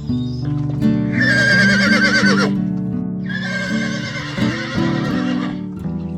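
A horse whinnying twice: two long, quavering calls over background music.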